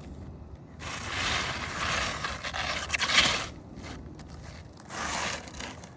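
Nails being pried out from under asphalt roof shingles, a tool scraping and grating against shingles and nails in two goes: a long one of nearly three seconds and a shorter one near the end.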